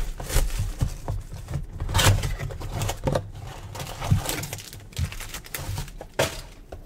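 Cardboard blaster boxes of football cards being handled on a table: irregular taps and knocks with rustling, the sharpest knock about six seconds in.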